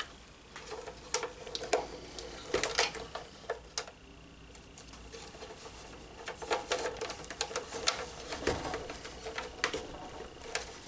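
Irregular clicks, taps and rustles of electrical cables being bundled and pushed into a plastic carry box.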